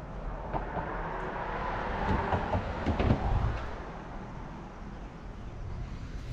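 Plastic garbage bag rustling and crinkling as it is handled and pulled open, loudest in the middle with a few sharp crackles, over a steady low background rumble.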